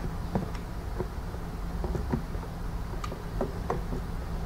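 Scattered light clicks and knocks of plastic housing parts as the upper casing of a Philips PerfectCare Aqua steam generator iron is seated back onto its base, over a steady low hum.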